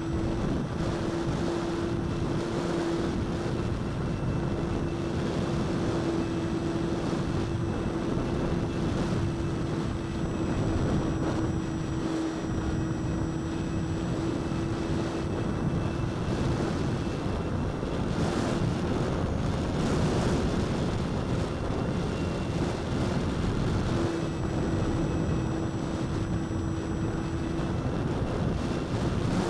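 Onboard sound of an FT Flier RC plane's electric motor and propeller in flight: a steady hum with a faint high whine, half buried in heavy wind rush on the camera's microphone. The hum fades for several seconds in the middle of the flight, then returns.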